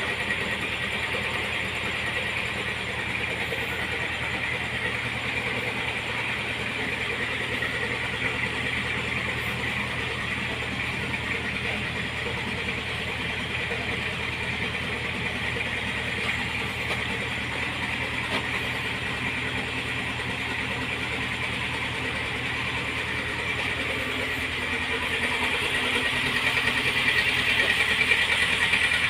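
YTO X704 tractor's diesel engine running steadily, growing a little louder over the last few seconds.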